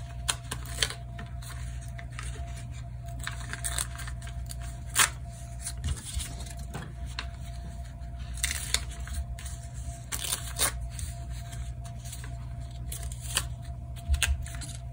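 Foundation paper being torn and peeled off a sewn paper-pieced quilt unit, in irregular crackling rips and rustles. The paper tears along the line that the short stitches have perforated.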